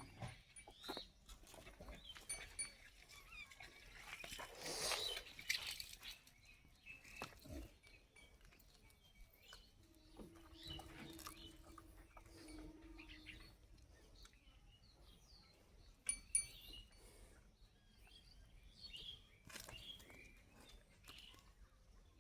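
Faint farmyard sounds: small bird chirps here and there, scattered knocks and rustles, and one louder rustling swell about five seconds in.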